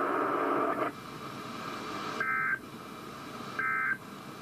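NOAA Weather Radio's SAME End-of-Message data bursts: two short, shrill two-tone digital squawks about a second and a half apart, marking the end of the weekly test alert. Before them, about a second of loud radio hiss cuts off.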